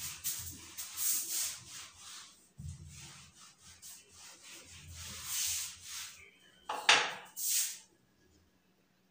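Whiteboard duster wiped back and forth across a whiteboard in a series of swishing rubbing strokes, the loudest about seven seconds in, stopping about a second before the end.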